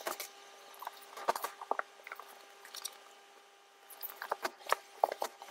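Bolts of fabric being pulled out of shelf cubbies and handled: scattered rustles and light knocks of cloth and cardboard against the shelving, with a short lull partway through.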